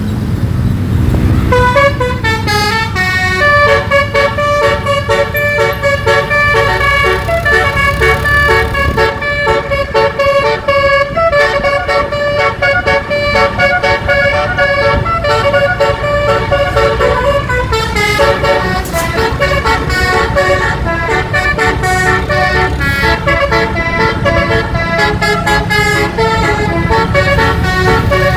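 Basuri 12-note telolet bus horn with roof-mounted trumpets playing a fast melody of stepped, changing tones, with a bus engine running underneath.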